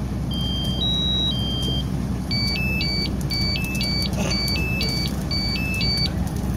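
Smoke alarms sounding over a steady low rumble. First comes a repeating stepped electronic tone, low-high-low. From about two seconds in to about six seconds it changes to a fast high-low alternating beep.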